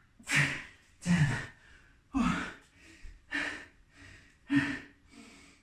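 A man breathing hard in loud gasping breaths, about one a second, out of breath from a hard set of push-ups. He says "ten" between breaths.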